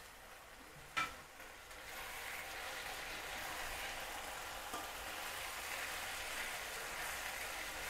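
Vegetable stuffing sizzling in a hot pan with sauces just added, a steady hiss that grows louder about two seconds in. A sharp clink of a utensil sounds about a second in.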